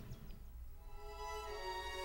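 Background music: held, sustained notes, with a new chord coming in about one and a half seconds in.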